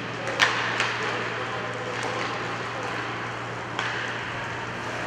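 Inline hockey play on a rink: a steady hiss of skate wheels and rink noise, broken by sharp clacks of sticks and puck, the loudest about half a second in, another just after and one near four seconds.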